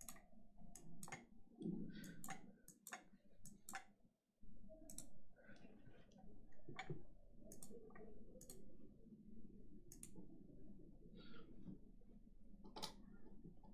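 Faint, irregular clicks of small buttons being pressed by hand, one or two a second, over low room tone.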